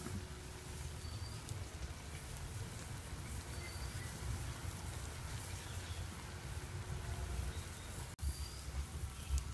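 Rural outdoor ambience: a steady low rumble with a few short, high bird chirps scattered through.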